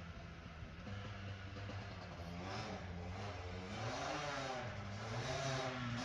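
Yamaha Blaster 200 quad's two-stroke single-cylinder engine riding a motocross circuit: a fairly steady note at first, then revving up and down repeatedly from about two seconds in, growing louder toward the end.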